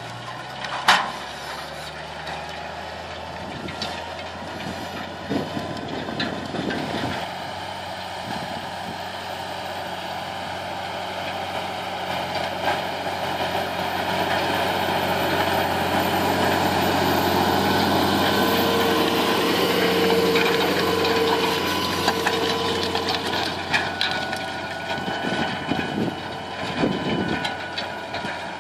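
Large tractor's diesel engine working steadily under load as it pulls a wide cultivator through the soil. It grows louder to a peak about two-thirds of the way through, with a faint steady whine, then eases off again, with occasional clatters from the implement.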